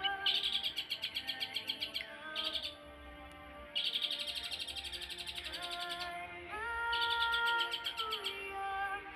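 Long-tailed shrike (cendet) singing in rapid chattering trills, in bursts of up to about two seconds with short breaks, over soft sustained background music.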